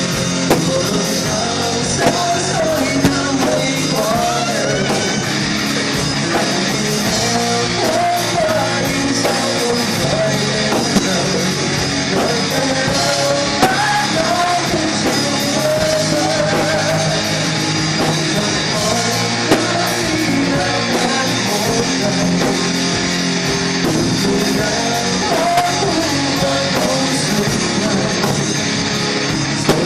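Rock music with a singing voice over guitar and band.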